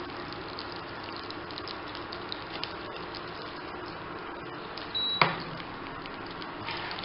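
Cooking oil heating in a nonstick frying pan on an induction cooktop, crackling faintly with small pops as it comes up to frying temperature. About five seconds in there is a brief high beep, then a sharp knock.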